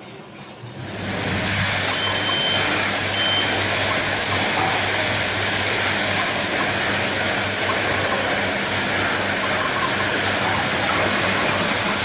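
Machinery running with a steady, loud noise over a low electrical hum, starting about a second in, with a faint regular tick about once a second.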